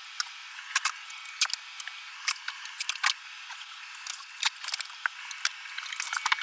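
Irregular sharp clicks, snaps and light knocks of hand demolition work, several a second, coming thicker in the second half.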